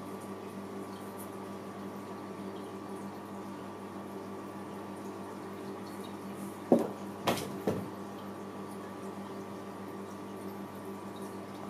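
Steady low room hum, broken a little past halfway by three quick sharp taps or knocks in close succession, the second the loudest.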